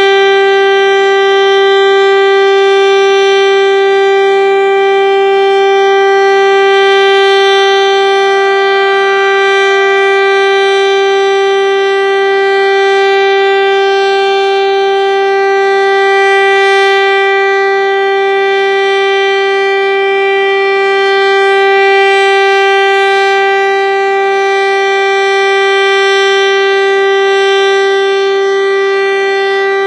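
Federal Signal STL-10 electromechanical single-tone outdoor warning siren sounding during a routine test. It holds one steady pitch, and its loudness gently swells and fades.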